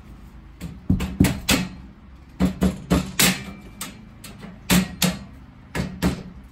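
Rubber mallet striking the steel top rail of a metal shelving unit to knock it loose from its slotted uprights. About a dozen sharp blows come in clusters of two or three, each followed by a low ring from the steel frame.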